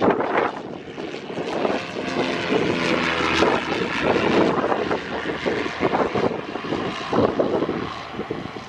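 Twin-engine piston propeller plane flying overhead and away, its engines and propellers droning loudly with a steady engine tone, fading slightly near the end as it moves off.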